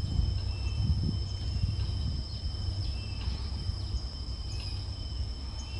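Outdoor insect chorus: insects trill steadily at a high, even pitch, with a few short chirps and a low rumble underneath.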